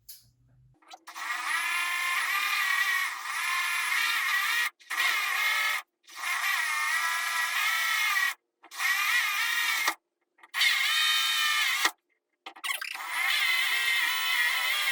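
Cordless power drill running in six spells of one to four seconds each, with short stops between them. Each spell is a steady motor whine whose pitch shifts slightly as it runs.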